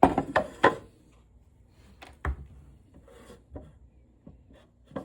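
Sharp clicks and knocks of small machine parts and screws being handled and set down on a hard surface during disassembly of a hot lather machine: a quick run of clicks at the start, one sharper knock about two seconds in, then faint ticks and rubbing.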